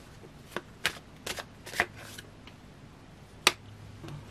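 A deck of tarot cards being handled and shuffled in the hand: a quick run of sharp card snaps, the loudest about three and a half seconds in, over a faint low hum.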